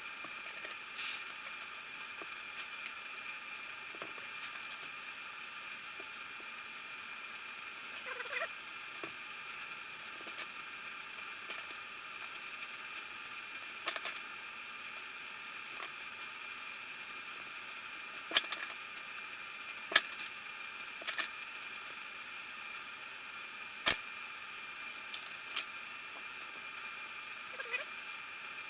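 Irregular sharp clicks and taps of hand tools and metal engine parts being handled during engine reassembly, over a steady background hiss; the loudest knocks come about 14, 18, 20 and 24 seconds in.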